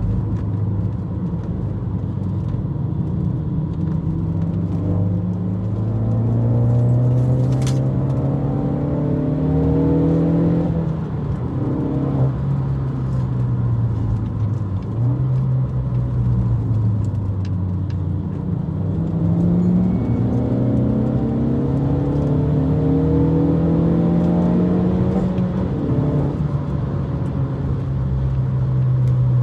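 Ford Focus ST's engine heard from inside the cabin at full throttle on a track lap: the pitch climbs steadily as it revs up, falls sharply at a shift or lift three times, then climbs again.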